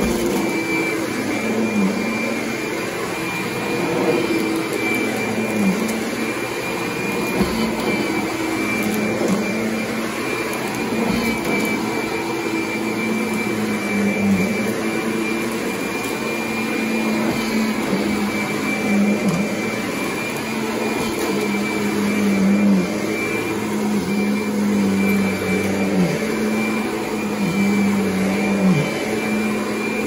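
Kirby Sentria upright vacuum running over carpet: a steady motor hum with a high whine above it. The motor's pitch sags briefly every second or two as the vacuum is pushed across the pile.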